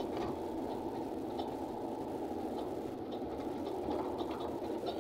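Truck's diesel engine pulling steadily under load up a steep dirt-road climb, heard from inside the cab, with a few faint clicks.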